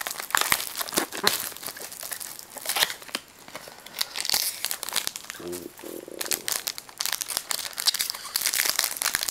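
Wrapper of a football trading-card pack being torn open and crinkled by hand, with irregular crackling and tearing throughout.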